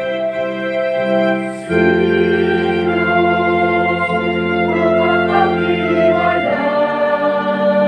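Keyboard playing slow, sustained hymn chords, with a choir singing along. The chord changes about two seconds in and again near the end.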